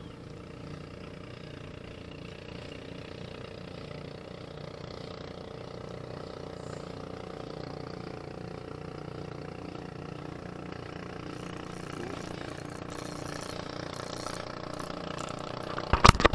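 An engine running steadily, a low drone that slowly grows a little louder. Right at the end come a few loud sharp clicks.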